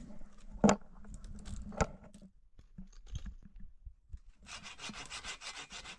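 Two sharp knocks about a second apart, then scattered light clicks, and near the end a second and a half of fast, even rasping.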